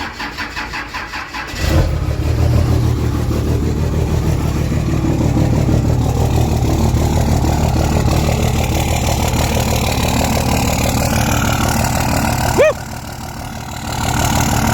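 Diesel pickup engine cold-started: the starter cranks for about a second and a half, then the engine catches and settles into a loud, steady idle. Near the end there is a brief sharp squeak, and the engine is briefly quieter.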